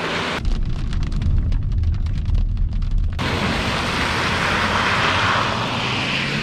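Mercedes S350d diesel sedan passing on a wet road. A strong low rumble, with the high end suddenly muffled for about three seconds, is followed by the hiss of tyres on wet tarmac that swells as the car goes by.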